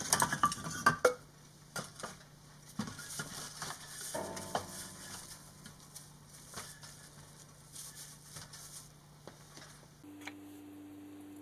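Plastic cling wrap crinkling and rustling as it is stretched and tucked over a ceramic bowl of bread dough, loudest in the first second, then scattered lighter rustles and clicks of handling.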